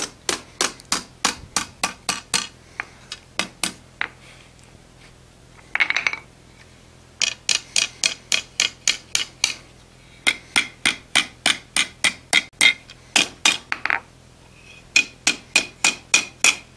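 Hand hammer striking a red-hot iron bar on the anvil face, rolling the end up into a ribbon scroll. Light, quick blows at about three a second, in runs broken by short pauses, many of them ringing.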